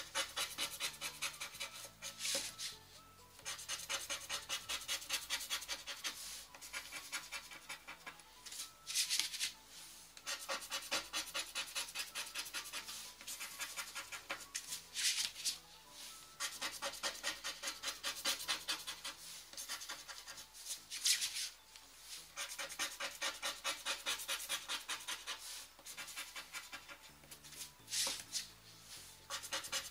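Scratch card's coating being scratched off in quick, even back-and-forth strokes, several a second, in runs of a few seconds. Every six seconds or so the rhythm breaks for a louder single swipe and a short pause.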